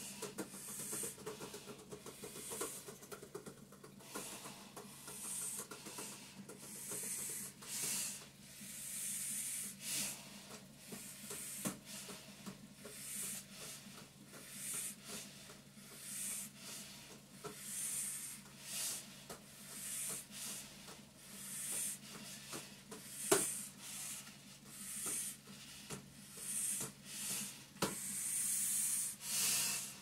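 Hard breathing hissing through a breathing-resistance endurance mask, about one breath a second, over the steady hum of a vibration plate. Two sharp taps come near the end.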